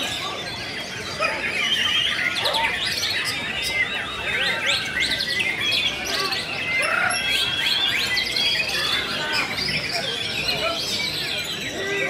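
White-rumped shama (murai batu) singing in its cage: a dense, varied run of quick whistles, chirps and gliding notes, with a few held whistled notes.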